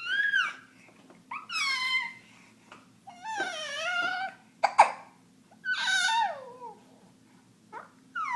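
A baby with hiccups making short, high-pitched cries, about one every second or so, each bending up and then down in pitch. A sharp, loud hiccup breaks in about halfway through.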